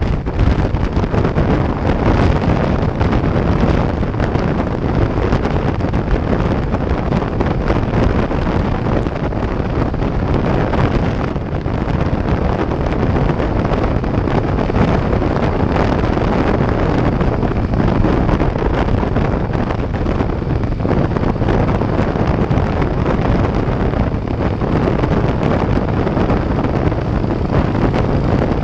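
Steady wind noise buffeting a GoPro microphone on a Harley-Davidson motorcycle at highway speed, with the bike's engine and road noise underneath.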